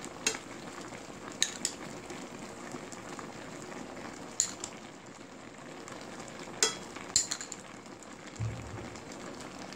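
Braised hairtail with radish simmering in a wok, a steady bubbling hiss, as minced garlic in water is spooned over it; a metal spoon clinks several times against the bowl and the pan.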